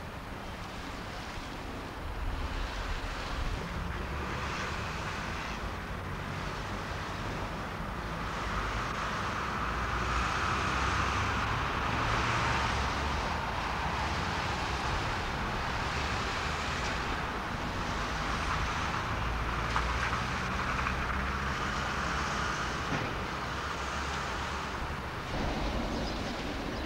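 Steady road traffic passing, swelling louder twice as vehicles go by, over a low rumble.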